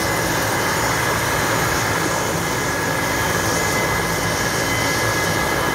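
Air ambulance helicopter running on the ground on its helipad: a steady turbine whine over the rotor noise, with no change in level.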